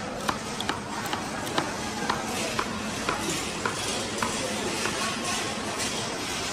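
Knife chopping raw green mango on a wooden cutting board: sharp knocks about twice a second that stop after about four seconds.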